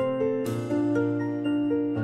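Gentle instrumental background music: a soft melody of sustained notes over a held bass line, with notes changing every quarter to half second.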